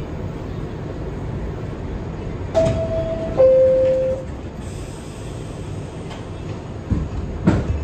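R62 subway car's two-tone door chime, a higher tone stepping down to a lower one, each held under a second, over the steady rumble of the train. Two sharp knocks follow near the end.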